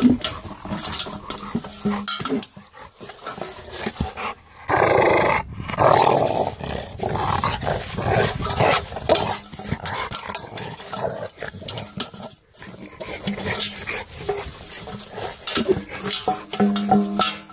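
A Rottweiler playing with a stainless steel water bowl: the metal bowl clanks and scrapes in a run of irregular knocks, with the dog growling at times.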